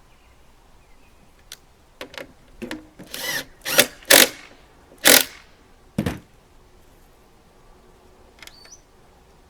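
Tool work on the last few wheel bolts of a lawn mower, screwed up into the plastic casing: a handful of short, sharp bursts between about two and six seconds in.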